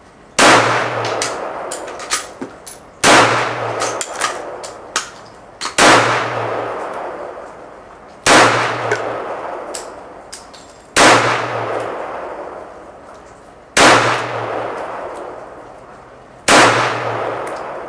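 Kel-Tec PF9 9mm subcompact pistol fired seven times in slow, even succession, about one shot every two and a half to three seconds, each shot trailing off in a long echo under the range roof. Small clinks between shots are spent brass landing. Every case ejects cleanly with the 124-grain ammunition.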